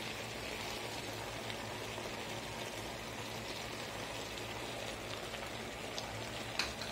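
Steady sizzling hiss of chicken and corn cooking in an aluminium pressure-cooker pot on the stove.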